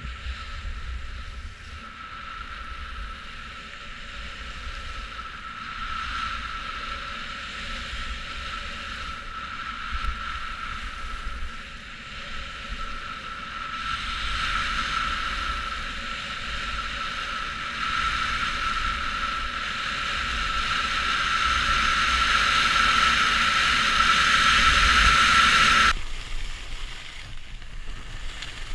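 Wind buffeting an action camera's microphone during a fast ski descent, with the hiss of skis sliding on snow and a thin steady whistle running through it. It grows louder as speed builds, then drops off suddenly near the end.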